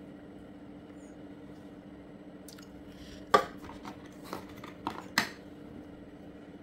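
Plastic vacuum-cleaner accessories being handled and set down: about half a dozen clicks and knocks in the middle, the loudest a sharp knock, over a faint steady hum.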